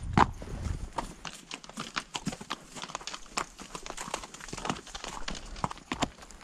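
A saddle mule's shod hooves clopping and clacking irregularly on rock and gravel as it picks its way along a steep, rocky slope, several strikes a second.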